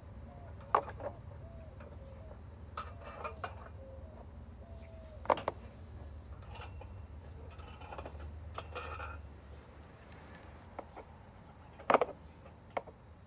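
Metal mounting hardware (threaded rods, washers and nuts) clinking and clattering as it is handled and fitted through traction boards: sharp separate clinks, the loudest about twelve seconds in. A low steady rumble underneath fades out about ten seconds in.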